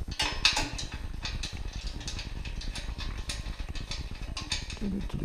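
Small metal clicks and clinks of bolts being handled and threaded in by hand into an alternator mounting bracket, over a steady low hum.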